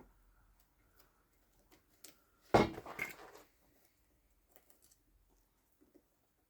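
Small clicks and taps of parts and tools being handled during mower wheel-motor disassembly, with one louder clatter about two and a half seconds in.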